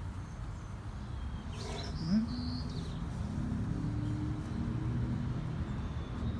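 Outdoor background: a steady low rumble, with a few short bird chirps about two seconds in, and a low level hum that comes in about then and holds on.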